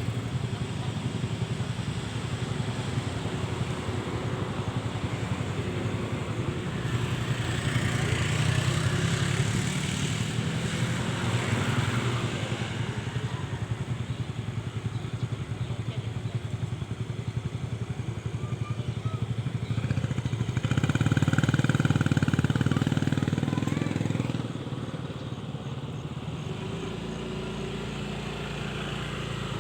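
Steady engine rumble of vehicles or aircraft, swelling a little about a third of the way in and loudest for a few seconds about three-quarters through, then settling lower.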